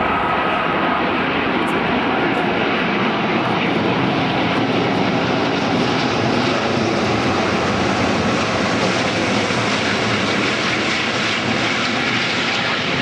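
Airbus A380's four turbofan engines heard from the ground as the airliner flies overhead: a steady, even jet noise with no rise or fall.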